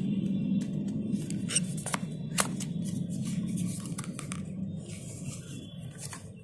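Small cardboard box opened by hand: scattered light scrapes and clicks as the paper flaps are pulled open and folded back. A steady low rumble sits underneath and fades out about five and a half seconds in.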